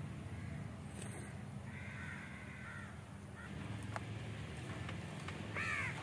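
A crow cawing twice: a short call about two seconds in and a louder, falling call near the end, over a steady low hum.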